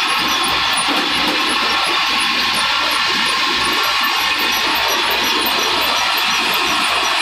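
Stone crusher plant running: a jaw crusher and belt conveyors driven by electric motors, a steady loud mechanical noise with an uneven rattling clatter underneath.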